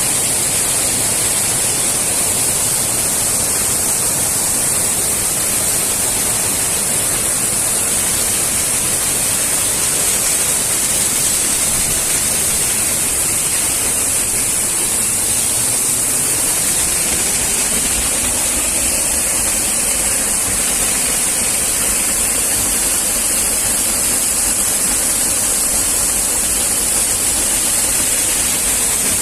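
Waterfall rushing: a steady, loud hiss of falling water that does not change.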